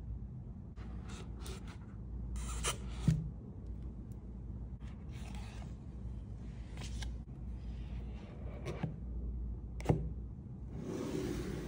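Gloved hands handling rigid cardboard packaging: card inserts sliding and rustling in short bursts, with two sharp knocks about 3 and 10 seconds in, the second as the two halves of the box are brought shut.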